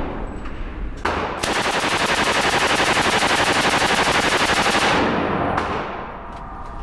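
M240 machine gun firing a .308 (7.62 mm) belt on full automatic: a single shot about a second in, then one sustained burst of about ten rounds a second lasting roughly three and a half seconds. The burst rings off in the indoor range's echo as it stops.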